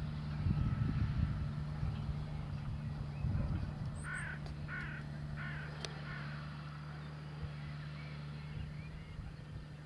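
JCB Fastrac tractor's diesel engine running steadily while towing a slurry tanker. About four seconds in, a crow caws three times in quick succession.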